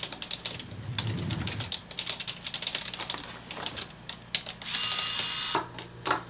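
Irregular light clicks of typing on a computer keyboard, with a brief scraping rustle about five seconds in, over a steady low hum.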